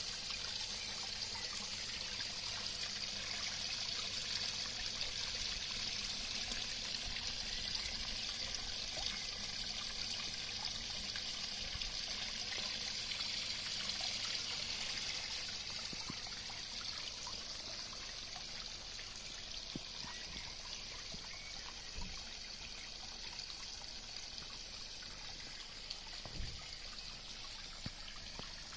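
Water from an Aquascape spillway bowl pouring in a thin sheet into a garden pond, a steady splashing trickle that grows a little fainter in the second half.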